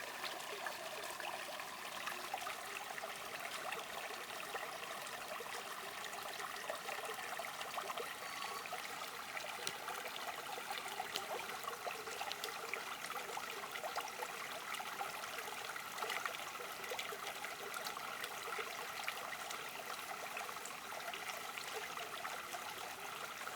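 Water from a natural spring trickling and splashing steadily, with many small splashes.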